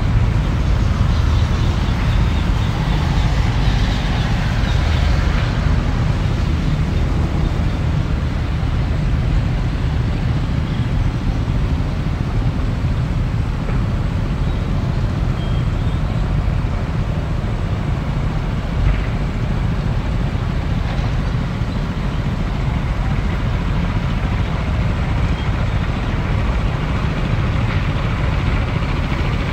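Tracked excavator's diesel engine running steadily with a deep rumble.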